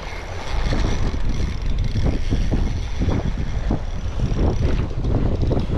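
Strong, gusty wind buffeting the microphone: a loud low rumble with uneven bumps.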